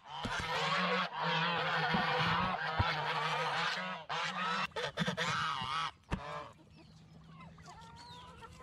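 A flock of geese honking, many calls overlapping, then thinning to a few fainter calls about six seconds in.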